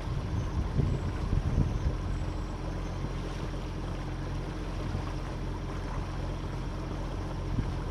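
A sailboat's auxiliary engine running steadily as the boat motors along, with a haze of wind and water noise over it. A few louder low thumps come about a second in.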